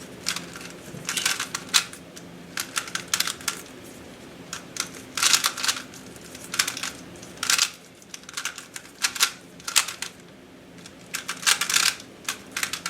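GAN 356 i smart 3x3 speedcube being turned fast during a timed solve: rapid plastic clicking and clacking of the layers in quick bursts, with short pauses between groups of turns.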